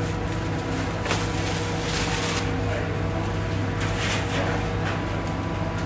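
Steady hum of bakery machinery, with a few brief scraping rustles of parchment paper and baking trays as sheets of shaped dough are slid off the trays onto an oven loader.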